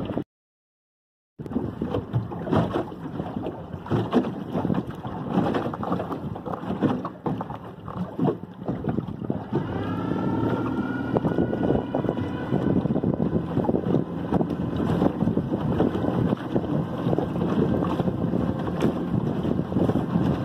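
Wind buffeting the microphone aboard a small outboard-powered skiff under way. After a second-long gap of silence near the start, the outboard motor's whine rises in pitch about halfway through and then holds steady as the boat picks up speed.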